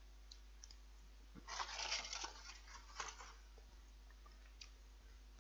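A foil-wrapped chocolate Easter egg crackling briefly about a second and a half in, followed by a few faint clicks.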